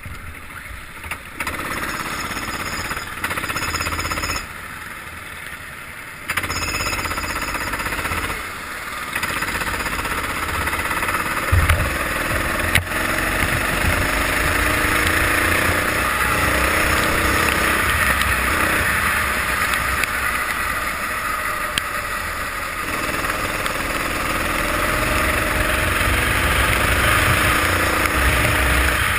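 Kart engine running unevenly with dips for the first several seconds, then running continuously and rising in pitch as the kart accelerates away, with a steady hiss of wind and wet road behind it.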